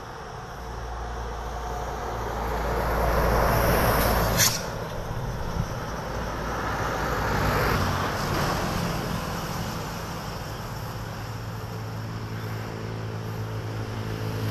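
Heavy road traffic passing close by: a large vehicle's rush and deep rumble swells and goes by about four seconds in, ending in a brief sharp noise, and a second, lighter vehicle passes a few seconds later.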